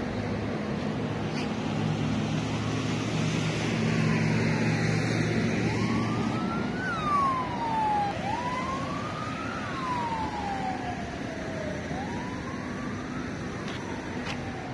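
A distant emergency-vehicle siren wailing, its pitch slowly rising and falling about every three seconds, over steady background noise. A low steady hum stops about six seconds in.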